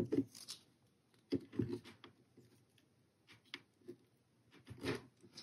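Faint, scattered clicks and light scrapes of pliers and plastic as a twist-in LED bulb is worked into its socket on the back of a car instrument cluster, in a few short groups.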